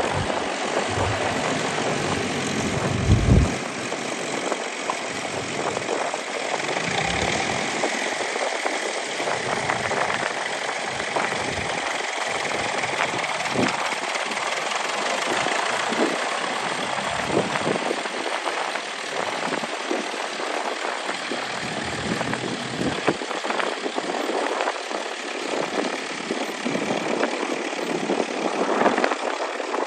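International B275 tractor's diesel engine running at a steady, even level.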